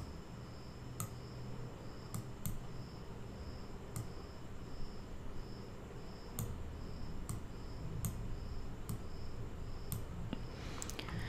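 About ten single computer mouse clicks, spread unevenly, over a faint low hum and a faint high-pitched tone that pulses about twice a second.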